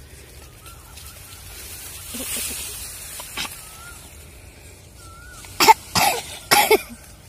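A person coughing three times in quick succession, about five and a half seconds in. Faint bird chirps come before.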